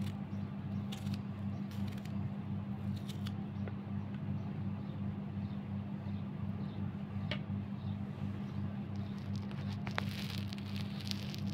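A small kitchen knife cutting green chilies and capsicum held in the hand, with a few scattered clicks, over a steady low hum.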